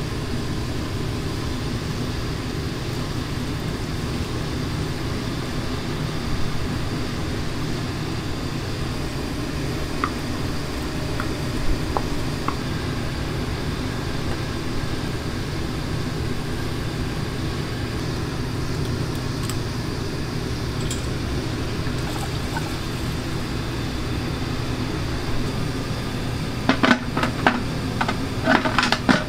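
Commercial kitchen noise: a steady low rumble with a few faint clicks, then several sharp clanks in quick succession near the end.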